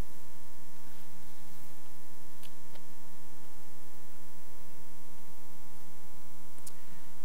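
Steady electrical mains hum with its buzzing overtones, as loud as the surrounding speech, with a few faint clicks.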